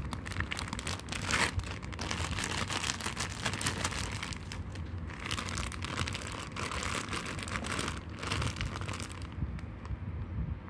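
Thin plastic takeaway bag crinkling and rustling as it is handled and slid out from under a mango salad, letting the salad tip into a bowl. The crinkling dies down about nine seconds in.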